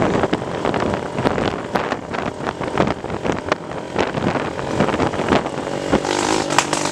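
Trail motorcycle engine running while riding over a dirt road, heard through a chest-mounted camera's microphone with heavy wind rush and frequent short knocks and thumps.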